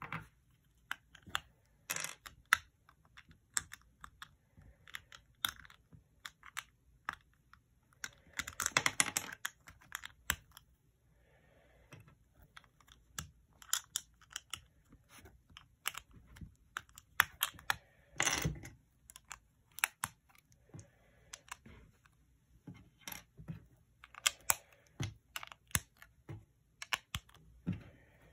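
LEGO plastic bricks being handled and pressed together: a string of small, irregular clicks and snaps, with a longer clatter about eight seconds in.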